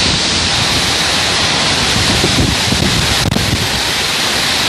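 Storm wind and heavy rain: a loud, steady rushing hiss with gusts buffeting the microphone.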